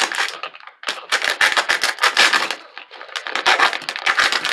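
Plastic pouch holding a single pickle crinkling and crackling as it is handled and torn open, in dense rapid bursts with a brief pause just under a second in.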